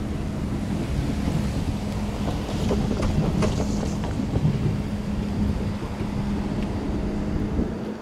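Wind buffeting the microphone over a steady low hum, with a few faint clicks and knocks near the middle.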